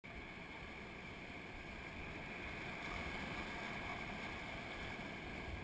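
Faint, steady rush of river rapids with wind noise on the microphone.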